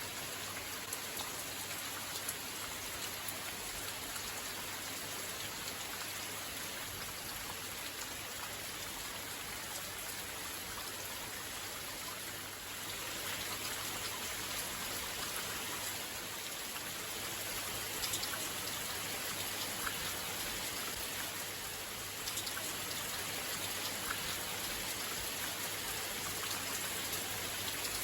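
Steady rain falling, with scattered ticks of single drops; it grows a little louder about halfway through.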